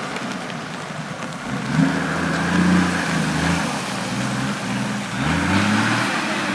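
Off-road 4x4 truck's engine revving as it wades through deep muddy water, the revs climbing about two seconds in and again about five seconds in, over the hiss of churning, splashing water.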